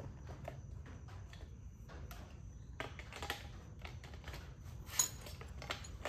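Small tools and parts being handled and shuffled about in a rummaging search, with scattered light irregular clicks and a sharper clack about five seconds in.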